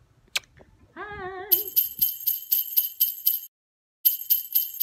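Sleigh bells shaken in a steady rhythm, about four shakes a second, as part of outro jingle music. They break off briefly and start again. Before them come a single click and a short wavering held tone.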